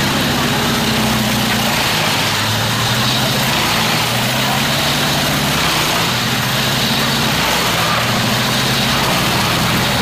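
Truck-mounted wood chipper running under load: a steady heavy engine drone under a constant hiss of branches being shredded.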